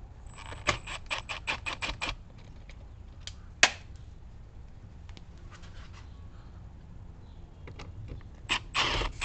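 Sharp clicks and taps of hand work on car trim screws and clips. A quick run of about eight clicks comes first, then a single loud click, and a short rattling cluster near the end.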